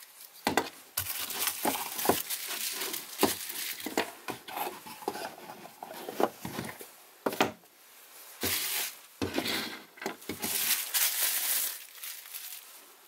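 Plastic bubble wrap crinkling and rustling as it is handled and pulled off a mobile phone, broken by sharp clicks and knocks of a cardboard phone box and a plug charger being picked up and set down.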